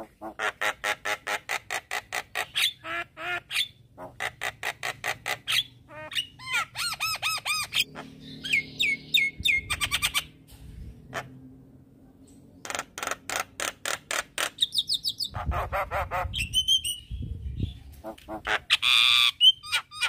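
Javan myna (jalak kebo) singing: runs of rapid repeated notes, about five a second, with squawky calls and short pauses between the runs.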